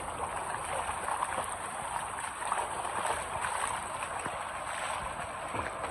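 Rainwater runoff flowing along a flooded street: a steady, even wash of running water.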